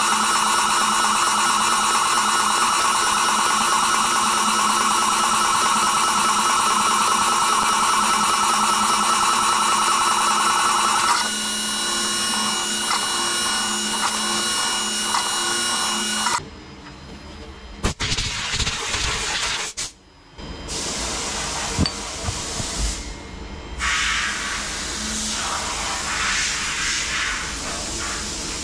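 CNC milling machine cutting a metal part with a small end mill under flood coolant: a steady, loud, high-pitched whine of the spindle and cut for about the first eleven seconds, then a changed, lighter cutting sound. About sixteen seconds in the cutting sound drops away suddenly, leaving a few knocks, and near the end an even hiss of coolant spray takes over.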